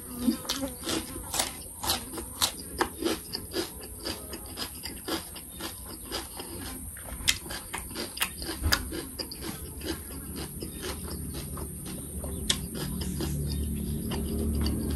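Close-up crunching and chewing of raw cucumber, with sharp crunches about twice a second over a steady high-pitched hiss. From about two-thirds in, a low rumble grows louder.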